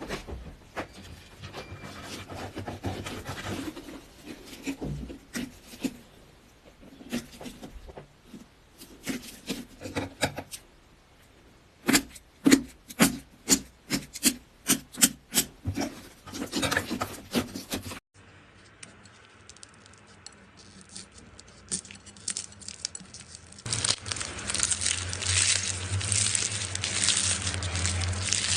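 Slime being squeezed and pressed close to the microphone: crackles, clicks and squelches, with a run of about a dozen sharp pops around the middle. After a cut comes a softer crackle, and near the end a steadier, rougher rubbing noise over a low hum.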